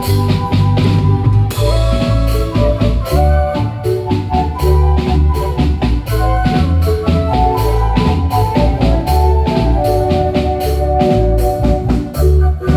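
A live marimba band playing: struck marimba notes over a drum kit and heavy bass keeping a steady, even dance beat.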